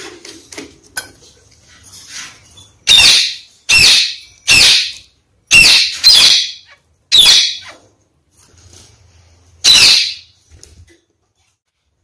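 Red-fronted kakariki parakeet calls: seven loud, short, sharp calls, six in a quick run from about three seconds in and one more near ten seconds. Faint clicks in the first second or two.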